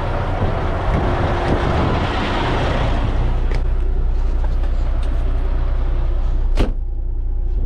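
Semi truck's diesel engine idling with a steady low drone, under a rushing noise that fades out over the first three seconds. A single sharp knock about six and a half seconds in.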